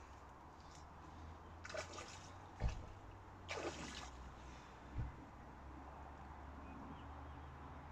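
A hooked fish splashing at the water's surface twice, about two and three and a half seconds in. Between the splashes come short dull thumps, the loudest about two and a half seconds in.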